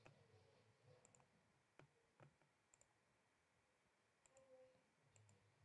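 Near silence with several faint computer mouse clicks, some as quick double ticks of a button pressed and released.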